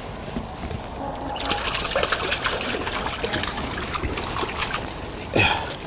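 Water streaming and dribbling off a mesh fish keep net as it is hauled up out of the lake, with a louder splash near the end.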